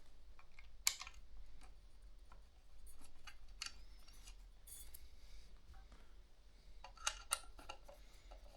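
Scattered light clicks and taps of metal ceiling fan parts being handled, as a blade arm is lined up with the screw holes on the motor base. One sharp click about a second in and a few more near the end.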